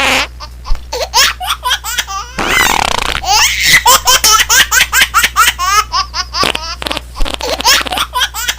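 A laughter ringtone: a recording of someone laughing in quick, repeated bursts, with a brief breathy stretch about a third of the way in.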